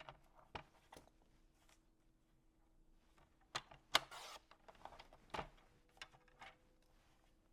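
Paper being cut and handled: a few sharp clicks scattered through, with a short scraping rustle about four seconds in, right after the loudest click.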